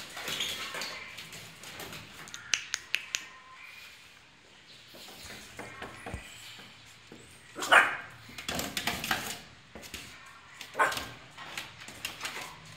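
Puppies at play, yipping and barking in short bursts, loudest about halfway through and again near the end, with a few sharp clicks a couple of seconds in.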